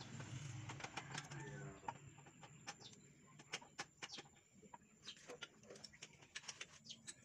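Scattered light metallic clicks and taps from parts and tools being handled on a manual 4x4 transmission during reassembly, over a low hum that fades out about two seconds in.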